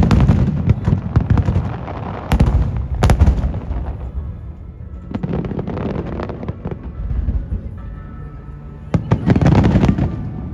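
Aerial firework shells bursting over the bay: deep booming bangs followed by dense crackling, in several volleys. The first comes right at the start, more follow around two to three seconds in and again at about five seconds, and a last strong flurry comes near nine seconds.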